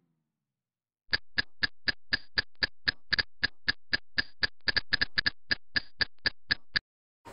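Film-leader countdown sound effect: rapid ticking clicks, about four a second, over a faint steady hiss. It starts about a second in and stops just before the end.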